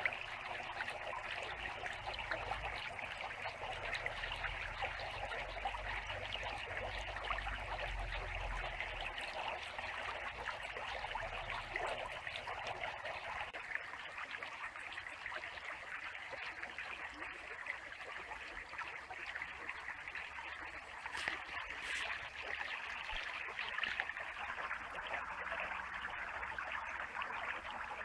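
Small clear creek babbling steadily over stones. A low rumble sits under it for the first ten seconds or so.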